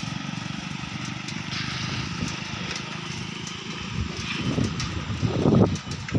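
An engine running with a steady fast pulse. Louder, gusty noise builds up over the last couple of seconds.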